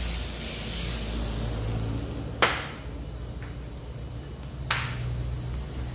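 Mountain Dew soda poured into a hot wok, sizzling at first and dying down after about two seconds. Then two sharp knocks, a little over two seconds apart.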